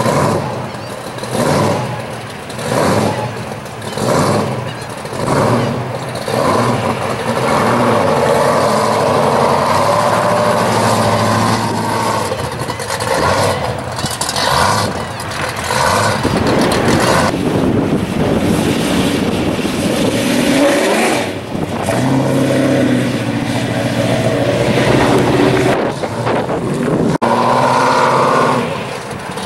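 Supercharged engine of a second-generation Chevrolet Camaro. It swells and dips about once every second and a half for the first several seconds, then runs in a long steady pull as the car drives off down the street, rising again near the end.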